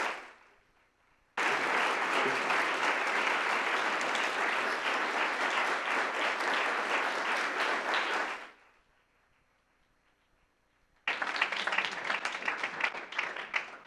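Lecture-hall audience applauding. The applause starts abruptly a little over a second in and dies away after about seven seconds, then a shorter round of clapping begins about three seconds later.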